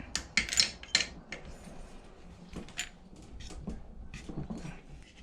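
Sharp metal clicks and clinks of a wrench on the cylinder head bolts of a Predator 212 engine as the head is torqued down. A quick cluster of clicks comes in the first second or so, then lighter scattered ones.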